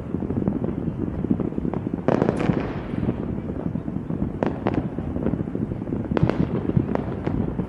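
Fireworks going off in a dense barrage: a continuous crackling rumble with sharp bangs through it, the loudest burst about two seconds in and several more in the second half.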